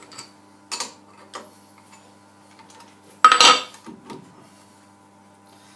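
Metal clinks of a spanner on steel clamp nuts and a part being shifted on a steel fixture plate: a few light clicks, then one loud metallic clank with a short ring a little over three seconds in.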